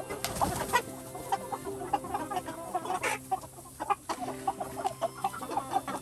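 A flock of Freedom Ranger meat chickens clucking, many short overlapping clucks coming thick and fast.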